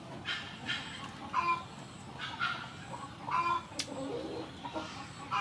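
Chickens clucking, a short call roughly once a second.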